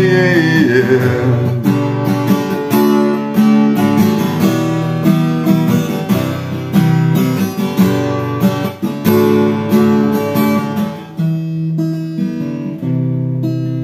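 Acoustic guitar strummed in a steady rhythm of chords, with no singing: an instrumental interlude of the song.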